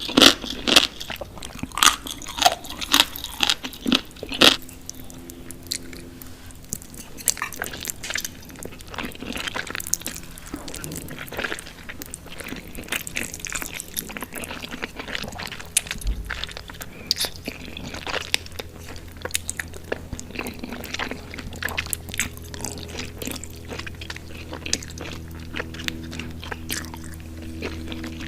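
Close-up eating sounds: crisp, crunchy bites and chewing, loudest and sharpest in the first few seconds, then softer, irregular crunching and chewing.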